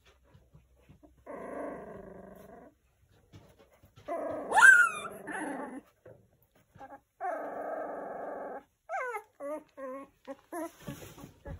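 A three-week-old puppy trying out its voice: three drawn-out rough calls, the second, about four seconds in, the loudest and breaking into a high rising squeal. Near the end comes a run of short, high yelps.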